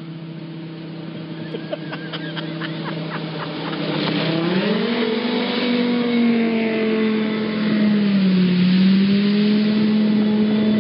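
Speedboat engine running at speed and drawing closer, then revving up sharply about four seconds in and holding high revs with a dip near eight seconds. Water spray rushes as the boat passes close.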